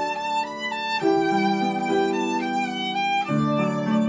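A violin playing a slow, legato melody with piano accompaniment, the notes held and changing about every half second.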